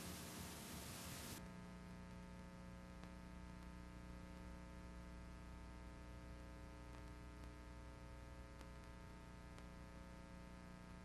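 Near silence: faint videotape hiss that cuts off about a second and a half in, leaving a low steady electrical hum with a few faint clicks.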